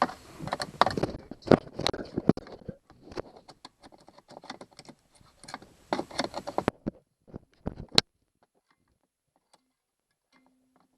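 Slotted screwdriver tip scraping and clicking rapidly and irregularly against the green-corroded metal battery contacts of a radio's battery compartment, scratching the corrosion off. It ends with one sharp click about eight seconds in.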